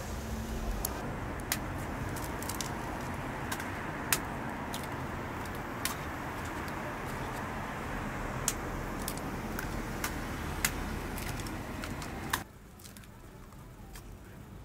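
Eggs being cracked one after another on the edge of metal egg-bread molds: a sharp crack about every two seconds, over a steady background rumble that drops away abruptly about twelve seconds in.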